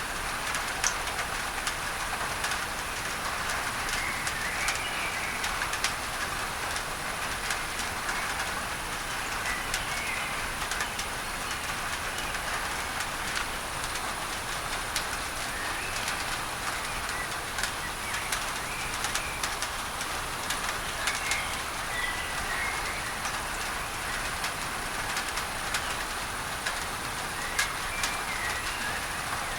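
Steady rain on a tin roof, with many sharp ticks of drops on the metal, blended with a constant hiss of added masking noise. Birds chirp briefly a few times through it.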